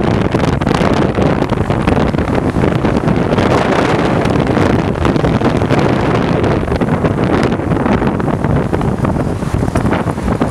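Heavy wind buffeting on the microphone from a vehicle moving at highway speed, mixed with steady road and traffic noise.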